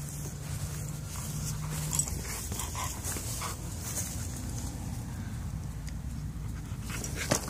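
Chow-mix dog panting with soft regular breaths, with a low steady hum during the first two seconds.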